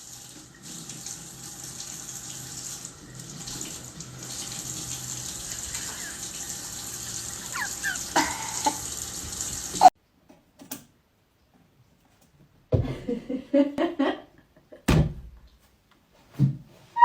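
Running water, like a tap, hissing steadily for about ten seconds, with a few short high squeaks near its end. It cuts off abruptly, and a few short separate sounds follow after a pause.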